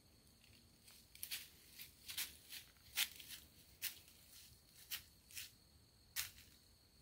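A deer walking through dry fallen leaves: a string of faint, irregular leaf crunches, about a dozen over five seconds, the last a little after six seconds in.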